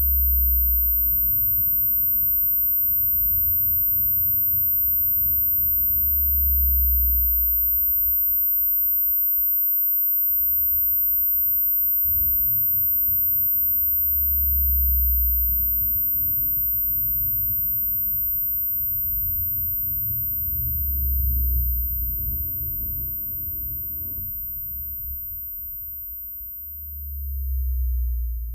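Electronic sound-design drone: a steady low rumble with deep bass swells that come and go about every seven seconds, over a thin, steady, high-pitched tone.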